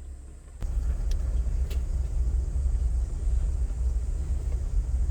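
Low rumble from inside a Jeep driving slowly along a dirt track, starting abruptly about half a second in, with a few faint rattles.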